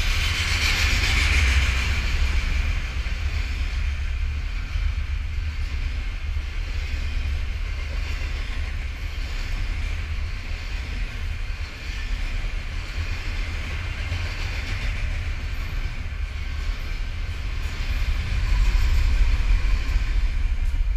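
Double-stack intermodal well cars of a freight train rolling past, their wheels clattering steadily over the rails. It grows louder near the end as the train's rear GE ES44DC diesel locomotive comes by.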